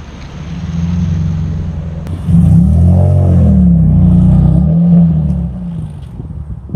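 Nissan 350Z's V6 engine and exhaust as the car accelerates past. The note builds, gets much louder a little over two seconds in, swings in pitch, then fades as the car drives away.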